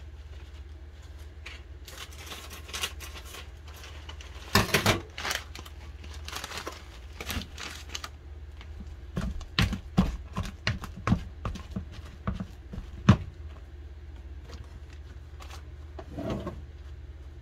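A spatula knocking and scraping against a plastic bowl as boiled mashed pumpkin is mixed with flour into dough: irregular knocks and scrapes, busiest in the middle, over a steady low hum.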